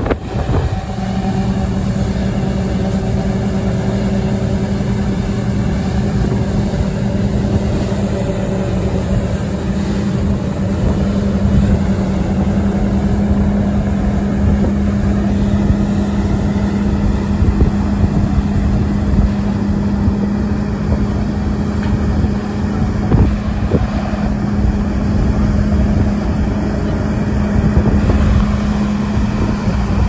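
John Deere 9770 STS combine running, a steady engine drone with a strong low hum that holds one pitch throughout.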